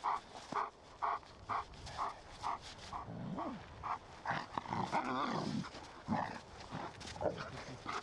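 Alaskan Malamute panting in quick, even puffs about twice a second during rough play. Around the middle it gives two short vocal sounds; the first falls in pitch.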